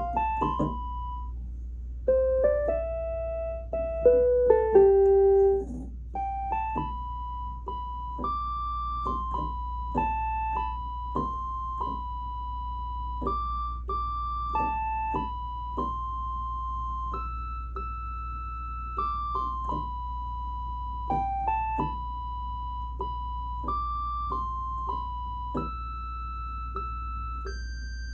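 Electronic keyboard played slowly one note at a time, a simple melody mostly in a middle-high register, with a few lower, louder notes in the first six seconds. A steady low hum runs underneath.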